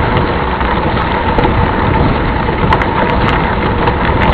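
Mountain bike riding over a dirt trail: steady wind rush on the microphone with the bike's rattling and crunching and scattered sharp clicks.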